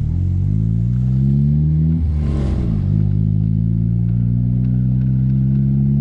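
Car engine accelerating, its pitch climbing. About two seconds in there is a gear change with a brief hiss, and then the pitch climbs slowly again.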